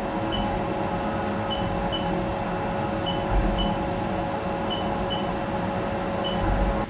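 CNC vertical machining center running a touch-probe cycle with its long-stylus spindle probe: a steady machine hum with a held tone, and short high beeps, mostly in pairs, about every second and a half.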